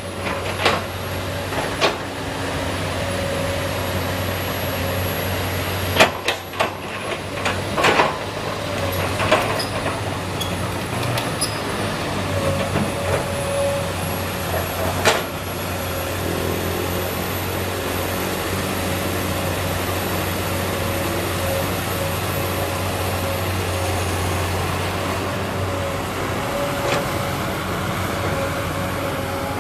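Komatsu PC200 hydraulic excavator's diesel engine running steadily under digging work, with sharp metal clanks and knocks from the bucket and arm, several in the first half.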